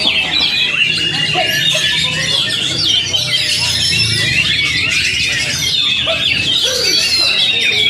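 Many oriental magpie-robins singing at once, with overlapping whistled and chattering phrases that never pause, over a faint low murmur of voices.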